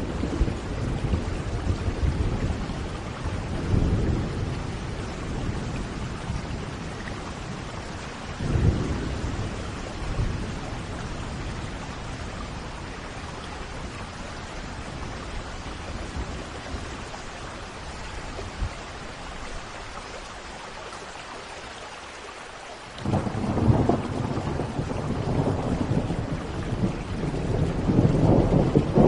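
Thunderstorm: steady rain with rolling thunder. Low rumbles come near the start and again about eight seconds in, then the storm eases, and a loud rumble breaks in suddenly about 23 seconds in and keeps building.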